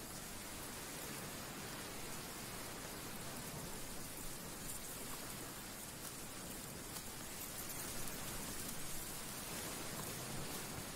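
Steady, even hiss like rain falling, with faint scattered ticks.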